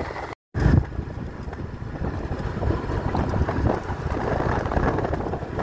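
Wind buffeting the microphone, an irregular, gusty noise strongest in the low end. The sound cuts out briefly about half a second in.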